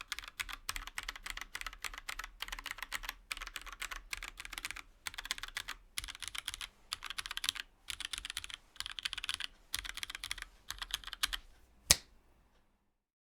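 Typing on a Kage tenkeyless mechanical keyboard with lubed vintage Cherry MX Black linear switches, a polycarbonate case, an aluminium plate and GMK keycaps. The keystrokes come in fast runs with brief pauses, and the typing ends with one much louder, sharp click.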